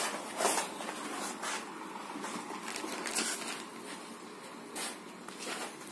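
Plastic fertilizer packets and a sack rustling and crinkling as powder is shaken out onto a compost heap, with about five short, sharp crackles spread among the softer rustling.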